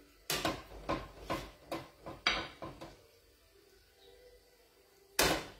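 Metal utensil clinking and scraping against a stainless steel frying pan as fettuccine is twirled and lifted out for plating: a quick run of clanks in the first three seconds, then a louder knock near the end.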